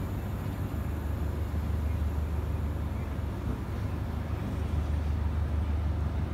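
Diesel engine of a DEMU train's power car running with a steady low drone as the train pulls slowly away, heard from on board beside the power car.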